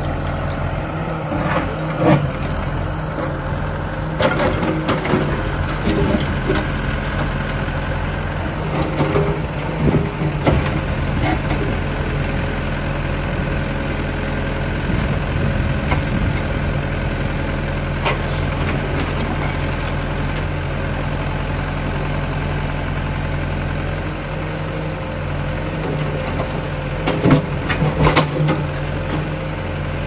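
New Holland FB110.2 backhoe loader's diesel engine running steadily under load as its bucket pulls down a masonry wall. Knocks and clatter of breaking wall and falling rubble come through a few times: a couple of seconds in, around ten seconds, and most strongly near the end.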